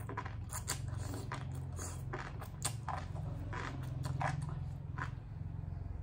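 Close-miked eating sounds: slurping noodles, then wet chewing with many short smacking clicks, over a steady low hum.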